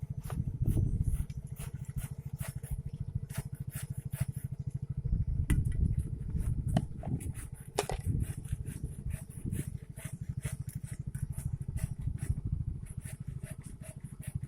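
A small engine running steadily with a rapid low pulsing, with scattered sharp clicks and clinks over it.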